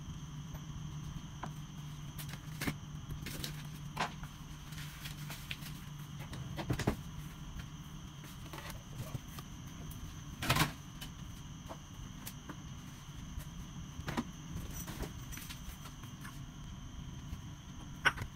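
Scattered light knocks and clinks of small bowls and utensils being handled on a kitchen counter, over a steady low hum.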